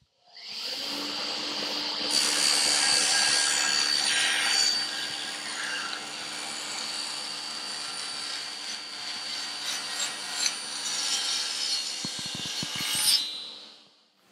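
Table saw with a thin-kerf 64-tooth Woodwork Series 27 blade starting up and crosscutting a sheet of 12 mm plywood, with the blade set low. The motor whines steadily and the cut is loudest for a few seconds about two seconds in. The saw stops about a second before the end.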